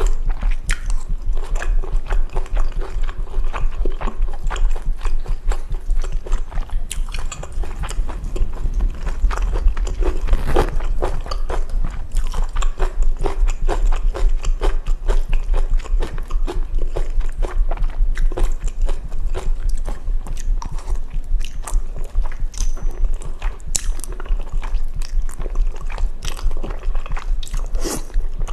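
Close-miked eating of spicy jajangmyeon made with chewy Chinese glass noodles: steady wet chewing and slurping, with many small sharp clicks. A low heartbeat thumps underneath, picked up by the microphone.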